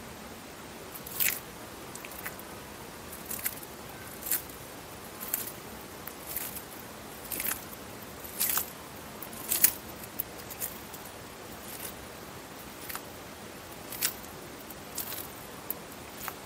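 An eastern Hermann's tortoise biting into crisp chicory leaves, a sharp crunching snip about once a second.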